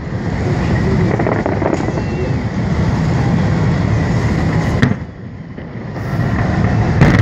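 Fireworks salute going off: a continuous dense din of bursts that dips briefly about five seconds in, with sharp loud bangs just before the dip and again near the end.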